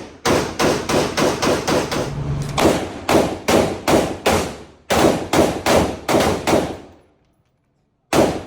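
Gunfire at a gun range: a rapid string of about nine shots in the first two seconds, then two strings of about five shots each at a steadier pace, and one more shot near the end.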